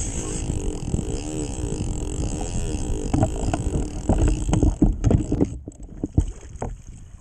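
Steady wind and water noise on a kayak. Then, from about three seconds in, a run of heavy knocks and thumps as a freshly landed yellowfin tuna is subdued on the kayak.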